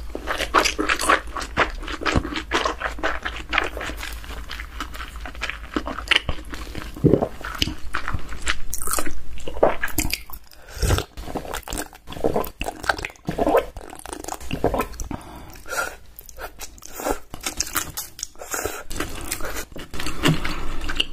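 Close-miked eating: a person biting and chewing dumplings, with crunching and wet mouth sounds, and drinking broth from a glass bowl about halfway through.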